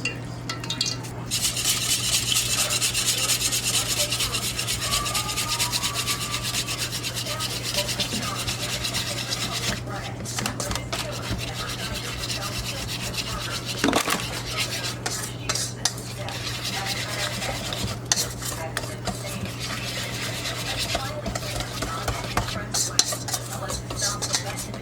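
Food being prepared in a kitchen: a continuous scraping, crackling noise with occasional knocks of utensils and dishes, over a steady low hum.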